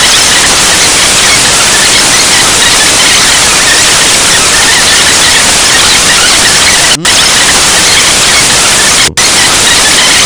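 Loud, steady static hiss like white noise, with no other sound through it. It cuts out for a split second twice, about seven and nine seconds in.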